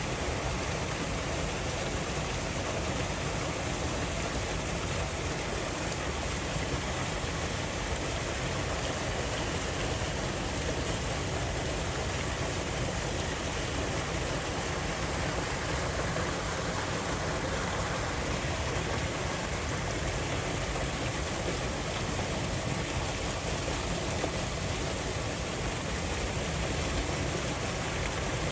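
Steady rushing of flowing water, unchanging throughout.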